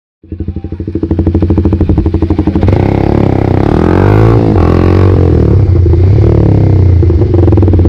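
Motorcycle engine running, starting abruptly, with its pitch rising and falling as the throttle is worked.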